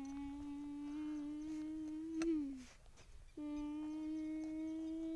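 A voice humming two long held notes. The first rises slightly, then slides down and stops about two and a half seconds in; the second starts about a second later and holds steady.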